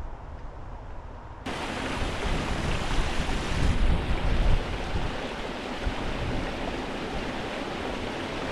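A small mountain stream rushing and splashing over rocks below a stone footbridge, a steady rush that starts abruptly about a second and a half in. Gusts of wind buffet the microphone, strongest around three to four seconds in.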